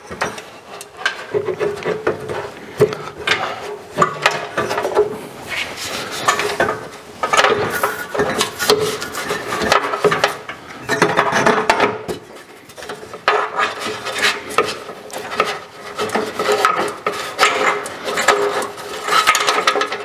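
Hands rummaging inside a sheet-metal RV furnace housing, fishing for wires: irregular scraping, rubbing and clattering of fingers, wiring and metal panels, with frequent small knocks.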